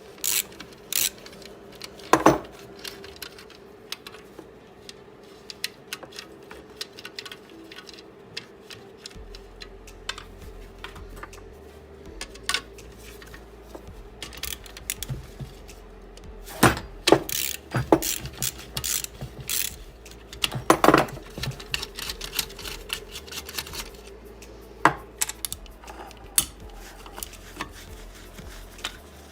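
Metal tools and alternator parts clinking, tapping and knocking during hands-on repair work. Many short sharp clicks, with louder clusters of knocks about 2, 17 and 21 seconds in.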